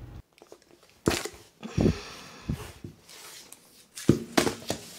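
Handling noises from cutting a vinyl peel-and-stick tile with a utility knife against a metal ruler: several sharp knocks, the loudest about a second in and about four seconds in, with a short scrape between them.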